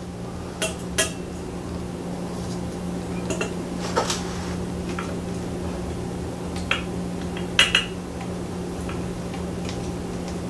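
Scattered small clicks and clinks of a screwdriver and small screws against a ceiling fan's light-kit housing as the globe screws are started, over a steady low hum.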